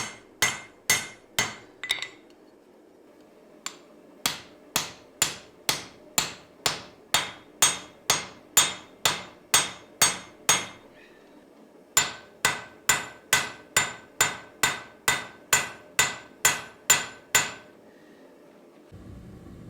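Hand hammer forging steel on an anvil: runs of steady blows at about two a second, each ringing, broken by two short pauses. A steady rushing noise starts near the end.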